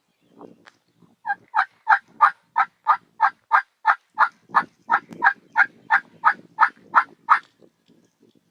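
A long, even run of about eighteen turkey yelps, roughly three a second, starting about a second in and stopping near the end.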